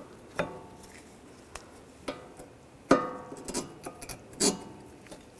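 Rear brake pads being fitted into the caliper bracket: a series of sharp metallic clinks, each with a short ring, the loudest about three seconds in.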